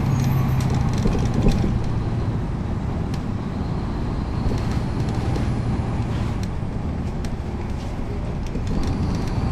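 Caterpillar C13 diesel engine of a NABI 40-SFW transit bus running, heard from the rear seats over the engine. A steady drone for about the first two seconds weakens to a lower rumble, with light rattles throughout.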